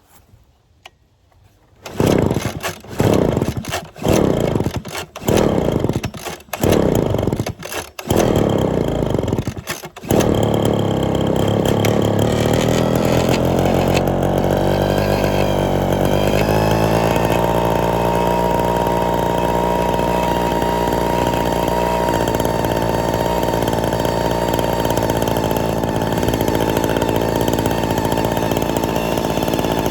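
Two-stroke backpack blower engine being started: it fires in about seven short bursts roughly a second apart, catches about ten seconds in, and then runs steadily, a higher whine settling in a few seconds later. The blower had not been run in a long time and has suspect old fuel lines.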